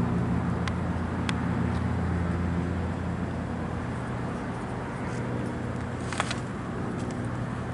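An engine idling steadily with a low, even hum that eases off slightly after a couple of seconds, with a few sharp clicks over it.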